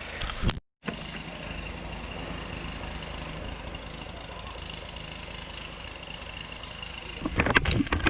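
Off-road inline skates with 150 mm wheels rolling over a trail, a steady rumble with a brief break about a second in and a few clicks near the end.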